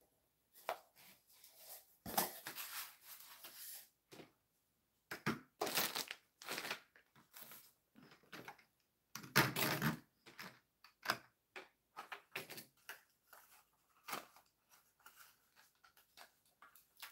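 Cardboard and paper packaging handled on a tabletop: rustling and crinkling in several bursts, the longest about two seconds in and again near ten seconds, with scattered clicks and knocks.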